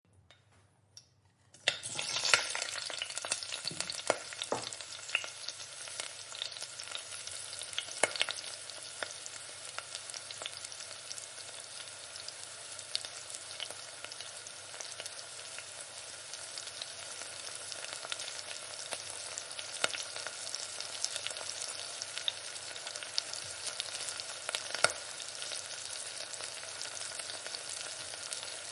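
Food frying in a pan: near silence, then a sizzle that starts suddenly a little under two seconds in and goes on as a steady crackling hiss with scattered pops.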